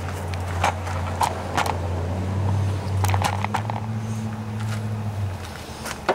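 A low, steady engine hum in the background that shifts slightly higher in pitch about halfway through and dies away about five seconds in, with scattered light clicks and knocks over it.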